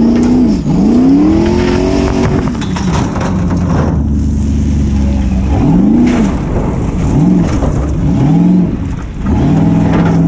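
Formula Offroad buggy engine, heard from on board, revving hard, its pitch surging up and dropping away again and again as the throttle is worked on the climb, with gravel clattering against the car.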